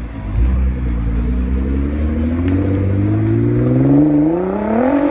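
Car engine accelerating hard, its note rising steadily for several seconds.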